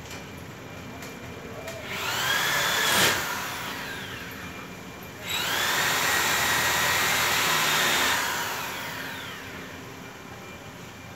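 A handheld electric power tool runs twice. Its motor whines up to speed for about a second and fades, then starts again suddenly, runs steadily for about three seconds, and winds down with falling pitch.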